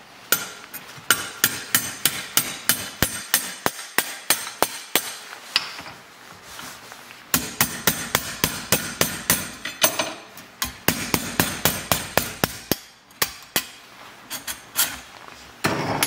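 Hammer striking a steel punch, metal on metal, in quick even blows about three a second, driving the retaining pin out through the grates of an outboard jet shoe. The blows come in two long runs with a pause of about a second between them, and a few scattered blows near the end.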